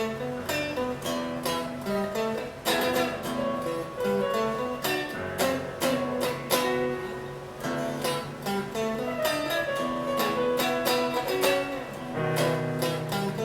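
PRS SE Custom electric guitar played on its neck pickup (85/15 S humbucker) through a Mesa Rectoverb 25 amp: picked single-note melodic lines with a few chords, a brief let-up midway and a low sustained note near the end.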